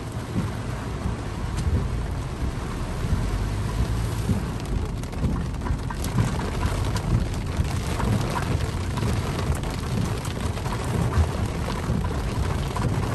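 Heavy rain pelting a car's roof and windshield, heard from inside the cabin: a dense, steady patter with a deep drumming underneath and scattered sharper drop hits on the glass.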